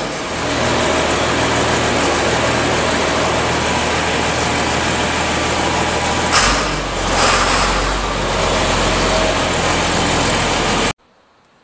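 John Deere 4955 tractor's six-cylinder turbo diesel running steadily. About six seconds in the engine note drops deeper and there is a brief hiss. The sound cuts off suddenly near the end.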